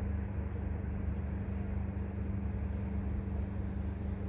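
Steady low outdoor rumble with a constant low hum underneath and no distinct event.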